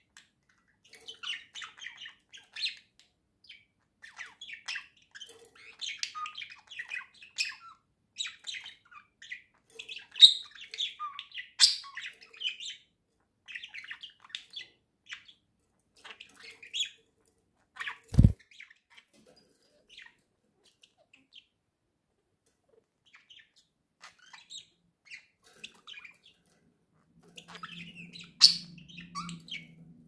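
Budgerigar chatter: rapid, busy chirping and twittering, denser in the first half and sparser later. A single sharp knock stands out as the loudest sound about 18 seconds in.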